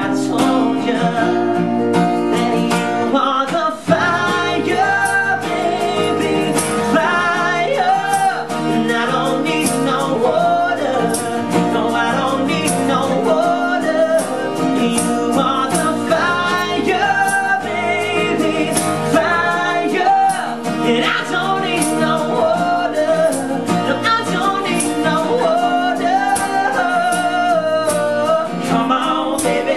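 Pop song played by a band: a singer's voice over guitar, with a steady beat throughout.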